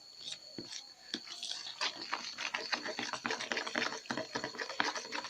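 Spoon stirring and scraping white glue mixed with Tenys Pé in a container to make slime: a quick, irregular run of sticky clicks and scrapes.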